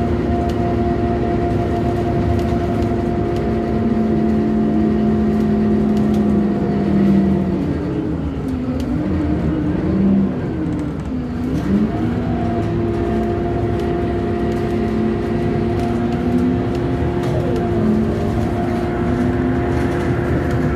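Scania K230UB bus's five-cylinder diesel and ZF automatic gearbox running, heard from inside the passenger cabin, with a steady droning whine. About eight seconds in the whine wavers up and down as the bus slows and changes gear through a roundabout, then settles back to a steady drone near the end.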